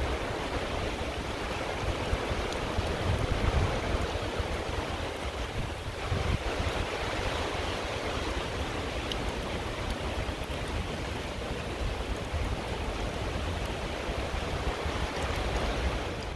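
Steady rain falling on a flooded rice paddy, a dense even hiss, with wind gusting across the microphone as a low rumble.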